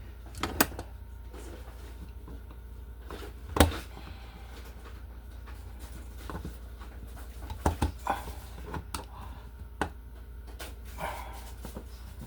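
Scattered sharp clicks and knocks of hand tools (pliers and screwdriver) working at a stuck outlet screw with a stripped head, the loudest knock about three and a half seconds in.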